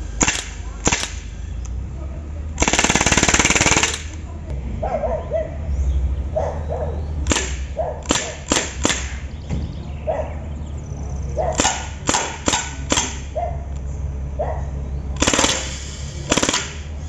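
Crosman M4A1 R1 CO2 blowback 4.5 mm BB rifle firing: a full-auto burst of rapid shots lasting over a second, about three seconds in, then separate single shots, then another full-auto burst near the end.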